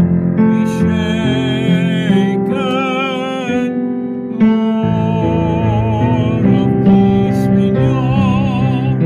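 Choral hymn arrangement with piano accompaniment: several voices singing with vibrato over piano chords, with a short pause between phrases about four seconds in.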